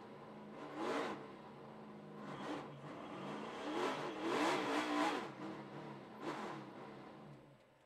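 NASCAR stock car V8 engine running, with several louder swells rising and falling in pitch over a steady low hum, then dying away near the end.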